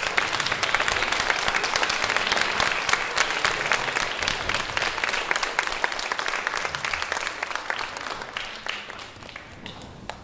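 Audience applauding, a dense patter of many hands clapping that thins out and fades away over the last few seconds.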